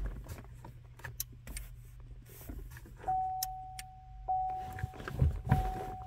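A car's warning chime: a steady single tone that starts about halfway through and repeats roughly every second. Scattered light clicks and a low steady hum run underneath. The engine is not cranking.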